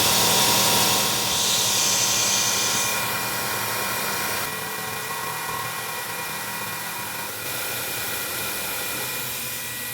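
Milling machine spindle running a 3/8 inch end mill through a light finishing pass, a steady whine over a hiss, dropping in level a few times as the cut goes on.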